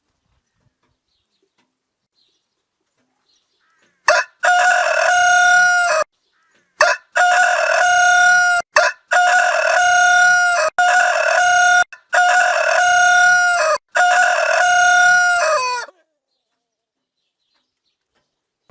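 Rooster crowing loudly: a long, steady-pitched, drawn-out crow that starts about four seconds in, is broken by several short, abrupt gaps, and ends with a falling note about four-fifths of the way through.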